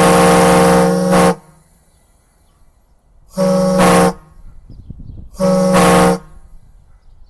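Homemade 3D-printed air-powered train horn, running on compressed air at about 120 psi, sounding loud steady blasts: one blast ends about a second in, then two shorter blasts follow a couple of seconds apart. Each blast has air hiss on top of the tone.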